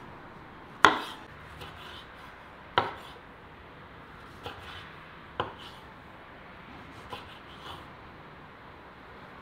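Knife chopping food on a cutting board: about six separate strokes spaced a second or two apart, the first, about a second in, the loudest.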